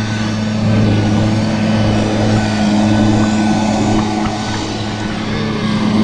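An engine running steadily at a constant speed: an even low hum with a rushing noise over it.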